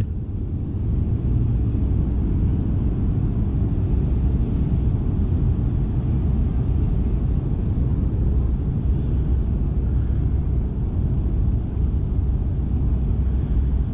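Wind buffeting the action camera's microphone: a steady low rumble.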